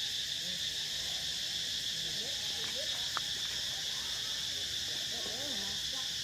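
Steady high-pitched buzzing of a forest insect chorus, with faint short sliding calls below it a few times.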